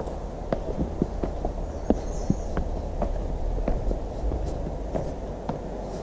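A hiker's footsteps on a trail, a steady walking pace of about two to three steps a second, heard as short knocks over a low, steady rumble.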